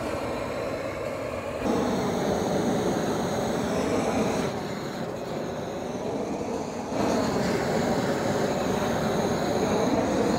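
Propane torch burning steadily as its flame is played over split bamboo cane sections, heating the cane. The rushing sound gets louder and quieter a few times as the torch moves.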